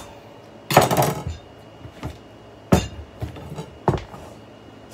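Kitchen knife cutting through a kabocha squash and knocking on a wooden cutting board: three sharp knocks, the first and loudest with a short crunching tail.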